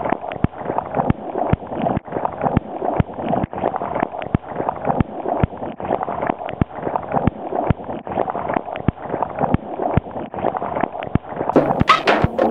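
Turbulent seawater churning and gurgling close to the microphone, with a dense crackle of many small pops and splashes. Music comes in near the end.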